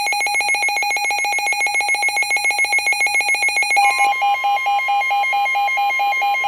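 Emergency Alert System alert tones for a flood warning: a fast-pulsing electronic alarm beep, switching about four seconds in to a slower pulsing beep over a steady high tone.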